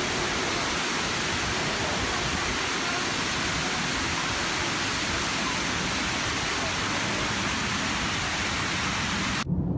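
Steady hiss of heavy rain pouring down, cutting off abruptly near the end.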